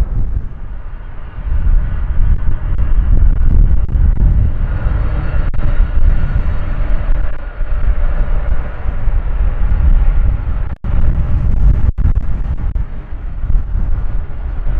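Jet airliner engines at close range: a heavy low rumble, joined about five seconds in by a steady engine whine as a Boeing 767-300 begins its takeoff. Two brief gaps break the sound near the end.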